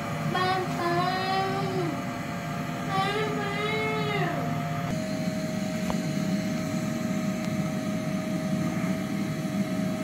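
Canister vacuum cleaner running steadily with a constant whine, its pitch shifting slightly about five seconds in. A high voice sings two short wavering phrases over it in the first half.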